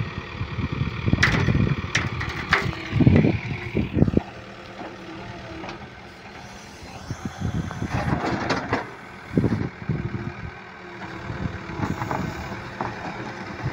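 Backhoe loader's diesel engine running while the boom and bucket work in the trench, the engine growing louder and quieter as it takes the load. Several sharp knocks sound about one to four seconds in.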